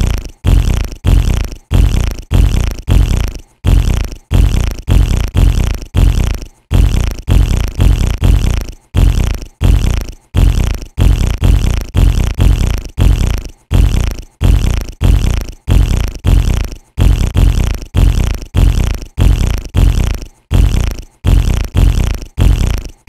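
Fart sounds repeated over and over: a loud, deep burst about every half second, each fading before the next.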